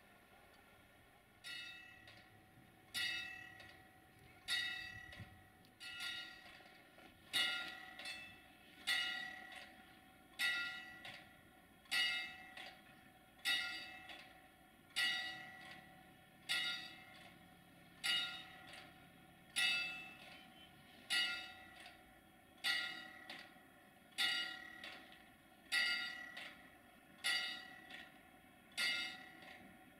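A bell struck at a slow, even pace, about one stroke every second and a half, each stroke ringing on and dying away before the next.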